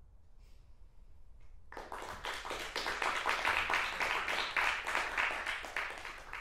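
Audience applauding, breaking out about two seconds in and holding steady.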